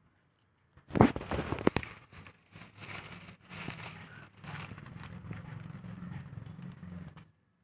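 Dry corn husks crackling and rustling as ears of glass gem corn are handled, loudest about a second in. A low steady hum runs under the later part and cuts off abruptly near the end.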